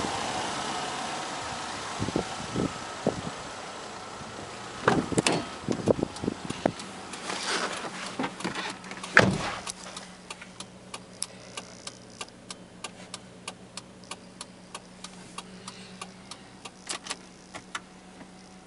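Wind on the microphone and a few knocks, then a car door shuts with a heavy thud about nine seconds in. After the thud, inside the Chevrolet Aveo's cabin, there is a steady low hum with light regular ticks, about three a second.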